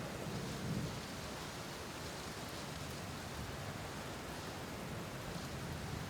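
Steady rain, with a low rumble of thunder in the first second.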